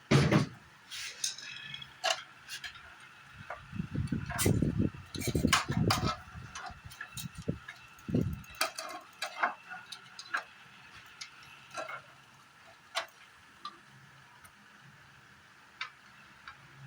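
Irregular clinks, taps and knocks of hard metal and plastic parts and tools being handled, with a run of heavier knocks about four to six seconds in.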